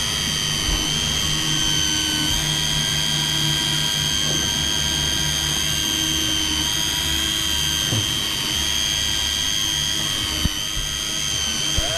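Electric deep-drop fishing reel's motor whining steadily as it winds a heavy fish up from the bottom, labouring under the load, over a low steady hum. A couple of short knocks near the end.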